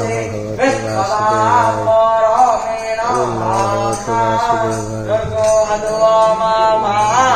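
Devotional music: a man singing long, held, bending notes over a steady low drone, with jingling metal percussion struck throughout.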